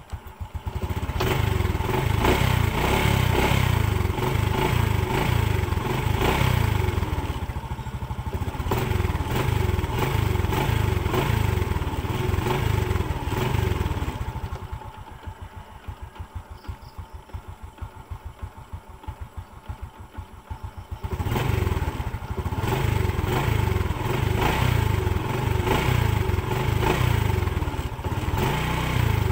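Honda XRM 125's air-cooled single-cylinder four-stroke engine catching in the first second and running at a raised speed. It drops to a quieter idle about 14 seconds in and picks up again about 21 seconds in.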